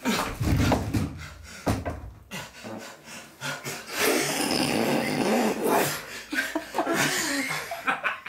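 A few dull thuds as a body goes down onto a wooden floor, then a stretch of breathy laughter.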